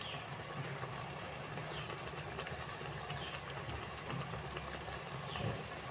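Batter-coated banana fritters (pazham pori) deep-frying in a pan of hot oil: a steady sizzle with small scattered crackles, over a low steady hum.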